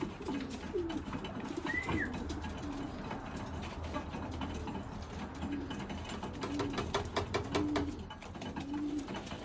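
Racing pigeons cooing in the loft, a run of short low coos, over a scatter of sharp clicks and taps. A brief higher call sounds about two seconds in.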